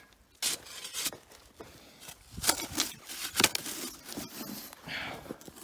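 Spade digging into dry, clumpy soil: a run of irregular scrapes and crunches as the blade cuts in and earth is moved aside.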